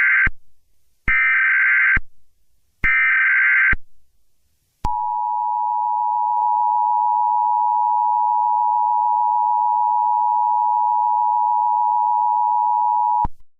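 Emergency Alert System SAME header: the end of one burst and then two more short bursts of shrill data tones, about a second apart. Then the EAS two-tone attention signal (853 and 960 Hz) sounds steadily for about eight seconds and cuts off suddenly. It marks the start of an emergency alert broadcast.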